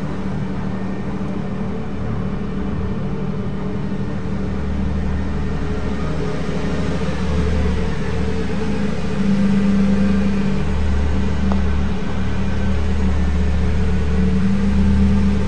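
Lamborghini Revuelto's 6.5-litre V12 running steadily, a low, even engine hum that grows fuller about four seconds in.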